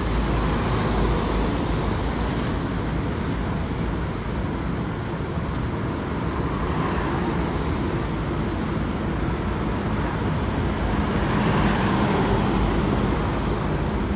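Steady street traffic noise, with a vehicle passing a little louder about eleven seconds in.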